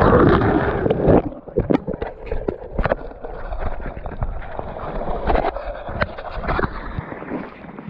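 An angler in waders falling backward at the water's edge of a shell-and-gravel beach. A rush of water and wind on the microphone lasts about a second, then come scattered knocks, scrapes and rustles as clothing, spinning rod and reel hit the wet shells while he scrambles.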